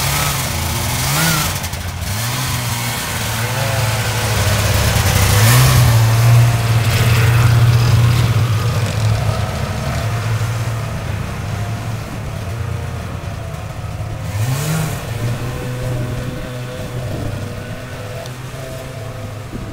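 Snowmobile engines running as the sleds pull away, revving up sharply three times, about a second in, a third of the way through and about three-quarters through. They are loudest just after the second rev, then fade slowly as the sleds move off.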